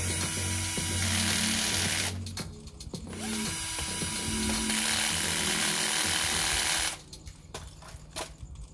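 Cordless drill running in two bursts: about two seconds, a short pause, then about four seconds, stopping about seven seconds in.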